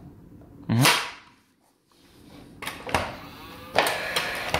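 Paslode cordless gas-powered 18-gauge nail gun being readied: a loud sharp bang about a second in, then a few sharp clicks and a short whir as its nose is pressed against the beading.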